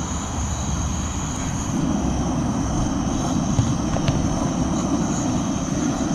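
Propane canister-top camp burner running under a cast-iron skillet: a steady low rushing flame sound with a thin high hiss, growing a little stronger about two seconds in.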